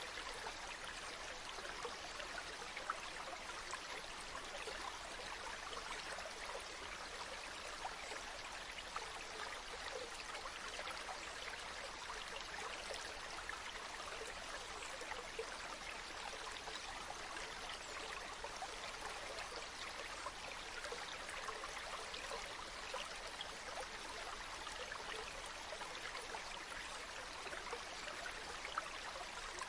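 A stream of running water flowing over rocks, a steady babbling with small splashes and gurgles.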